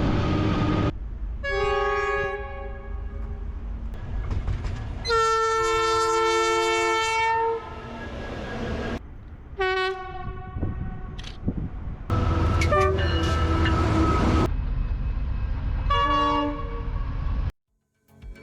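A run of separate train horn soundings cut together, each a chord of several notes: a blast about a second in, a longer one of about two and a half seconds around five seconds in, then three shorter blasts. Between them is the rumble of passing trains on the rails, and the sound cuts off abruptly near the end.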